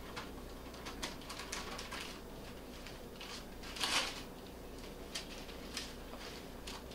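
Wax paper crinkling and rustling under hands as sticky dough pieces are peeled off it, with scattered soft clicks and one louder crinkle about four seconds in.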